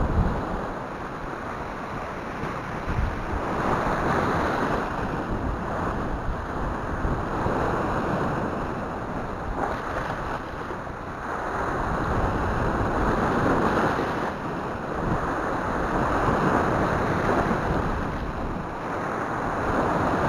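Sea waves surging in and washing white over a rocky shoreline, swelling and ebbing every few seconds. Wind is buffeting the microphone.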